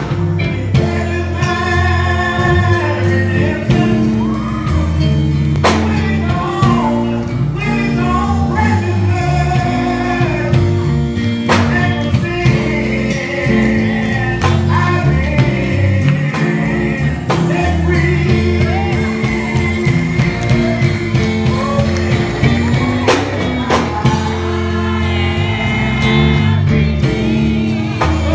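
A man singing a gospel song through a microphone and PA, with instrumental accompaniment and a steady bass line underneath.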